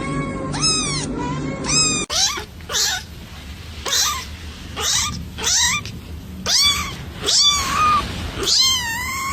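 Kittens meowing: a string of short, high-pitched mews, one to two a second, each rising and then falling in pitch.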